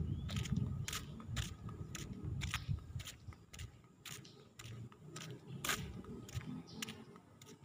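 Footsteps on a concrete path at a walking pace, crisp clicks about two to three a second, over a low rumble.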